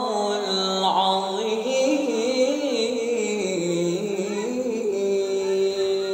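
An adolescent boy's voice, recently changed, reciting the Quran in the melodic tilawah style through a microphone. The pitch winds in ornamented turns, then settles into one long held note about five seconds in.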